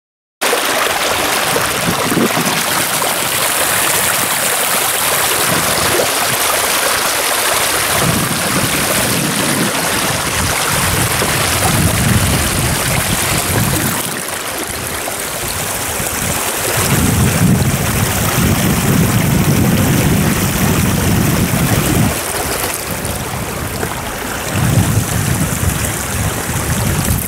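Shallow river running over stones, a steady hiss of flowing water, with gusts of wind buffeting the microphone in low rumbles, heaviest about two thirds of the way through and again near the end.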